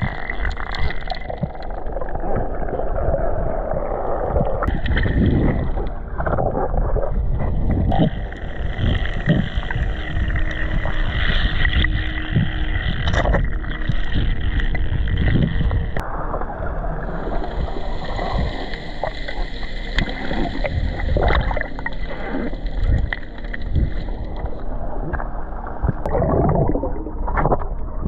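Muffled underwater sound from a camera held below the surface while snorkelling: a constant low rumble of moving water with swirling and bubbling, and a few sharp clicks.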